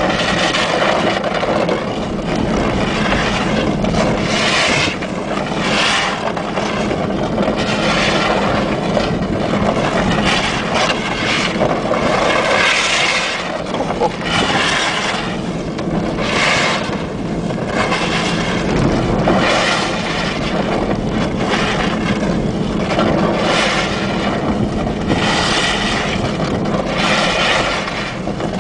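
Mitsubishi L200 pickup driving on a snow-covered road, its engine running under a steady rush of tyre and wind noise, with surges of hiss every second or two.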